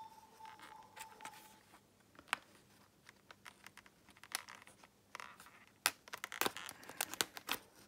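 Clear plastic knife packaging being pried and peeled open by hand: crinkling, scraping and scattered sharp clicks, busier in the last few seconds.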